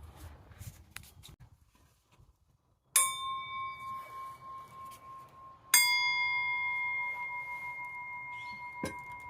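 A metal object struck twice, about three seconds in and again near six seconds, each strike ringing on like a bell and slowly fading, the second ringing longer.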